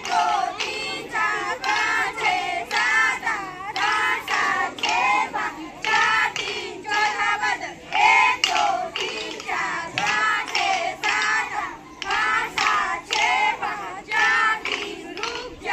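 High-pitched young voices singing in short, regular phrases.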